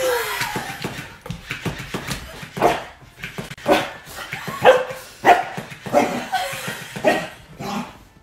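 A dog barking repeatedly in short, sharp barks, about one a second, the loudest in the second half.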